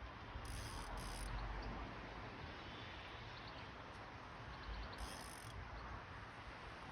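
Quiet lakeside outdoor ambience: a steady low rumble and hiss with faint high chirps of birds or insects, and brief hissing bursts about half a second in, again near one second, and about five seconds in.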